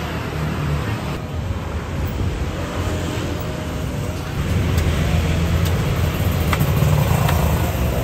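Street traffic: motor scooters and cars passing on a busy road, a steady low rumble that grows louder about halfway through, with a few light clicks near the end.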